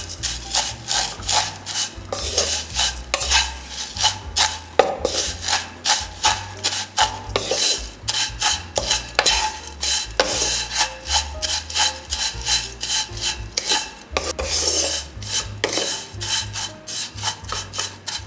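Spatula scraping and stirring dry vermicelli around a pan as it roasts, in quick repeated rasping strokes.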